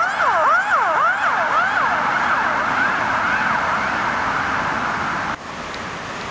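Emergency vehicle siren on a fast yelp, rising and falling about three times a second and fading out over the first few seconds. Steady road noise from passing traffic follows, then the sound drops suddenly to a quieter background about five seconds in.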